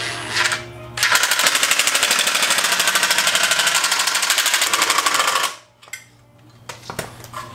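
Cordless impact driver hammering as it runs down a heat-shield clamp screw on a motorcycle exhaust. A rapid, steady rattle for about four seconds that cuts off suddenly, followed by a few light clicks.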